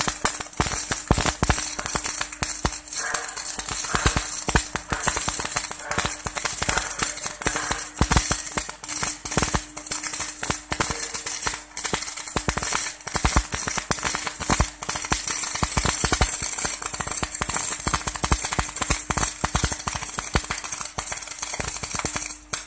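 Gas-shielded MIG wire-welding arc crackling and spitting continuously as a weld is run on steel, over a steady hum.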